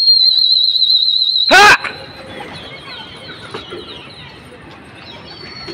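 Shrill, warbling whistles from pigeon flyers driving their flock. The first whistle is loud and held for about a second and a half and is cut off by a brief loud burst. Fainter whistles follow, and one slides downward near the end.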